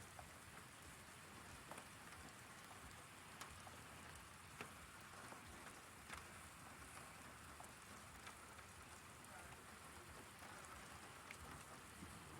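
Faint steady rain falling, with scattered sharp taps of individual drops.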